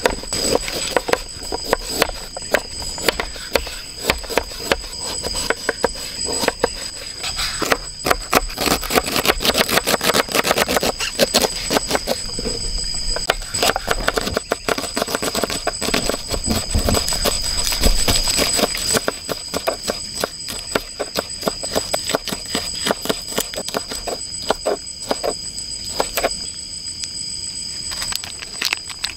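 Kitchen knife chopping vegetables on a wooden cutting board: quick, uneven knocks, thickest in the middle. Behind it runs a steady high-pitched chorus of night insects.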